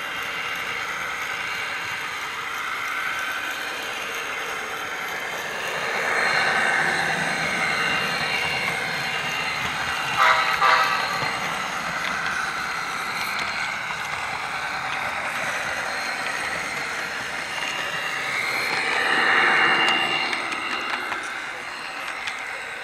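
HO scale model train running on its track, heard from a small camera riding in the train just behind the diesel locomotive: a steady mechanical rolling noise. It swells about six seconds in and again near the end, with a short burst of clicks about ten seconds in.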